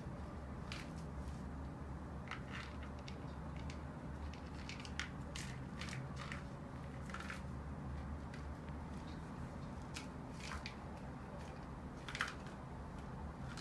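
Kittens chewing shrimp: irregular small crunching and smacking clicks, a few sharper ones, over a low steady hum.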